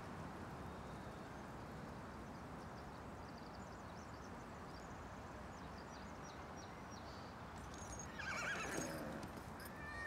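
Steady forest ambience, an even hiss, with faint high chirps in the middle. About eight seconds in, a louder animal call wavers and falls in pitch, like a whinny, for about a second.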